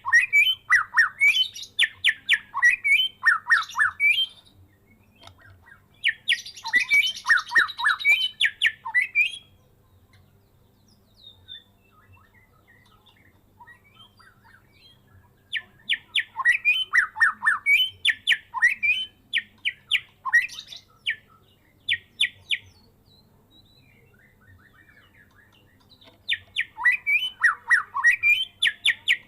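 White-rumped shama (murai medan) singing in bursts of several seconds of rapid, varied whistles and trills, with pauses of a few seconds between bursts; its song is packed with learned phrases mimicked from other birds.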